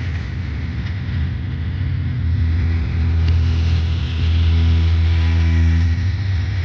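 Engine running steadily with a low hum; a pitched drone strengthens and gets louder from about a third of the way in, then eases off near the end.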